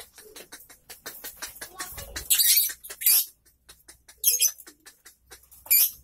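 Lovebirds chattering in rapid clicks and chirps, with three loud shrill screeches, the longest about two seconds in and the others near four seconds and near the end.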